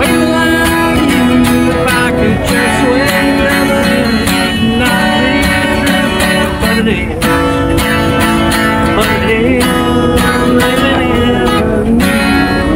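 Acoustic guitar strummed in a country tune, played steadily.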